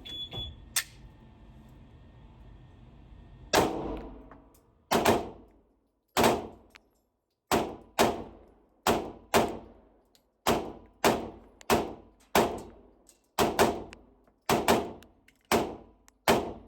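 A 9mm Glock 45 pistol with a Radian Ramjet compensator firing a long string of shots, about eighteen, at a steady, unhurried pace with a few quick doubles. The first shot comes about three and a half seconds in.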